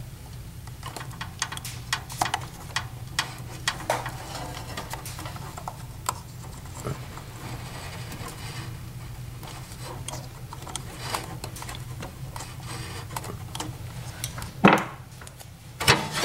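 Pliers and wires being handled while a crimp connector is squeezed onto a battery lead: scattered small clicks and rustles over a steady low hum. A louder knock comes about fifteen seconds in.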